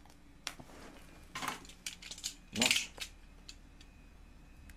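Unsealing and handling the small packaging of a wireless earbuds box: scattered light clicks and taps, with one louder rustle or tearing of the wrapping about two and a half seconds in.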